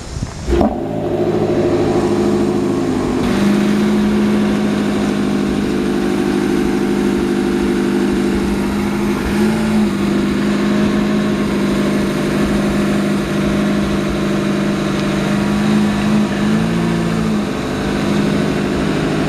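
Porsche 918 Spyder's V8 engine starting about half a second in, then running at a steady pitch with two brief rises in revs, about ten and seventeen seconds in.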